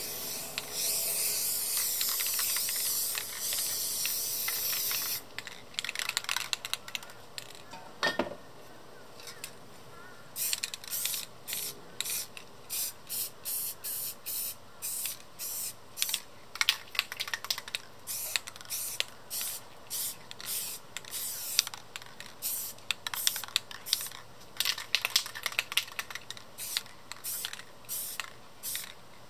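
Rust-Oleum American Accents aerosol spray paint can spraying: one long continuous hiss for about five seconds, then, after a short pause, many quick short bursts of spray one after another.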